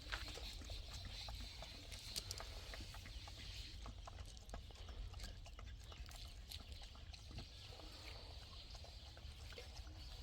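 Animal sounds with many scattered small clicks and knocks over a steady low rumble.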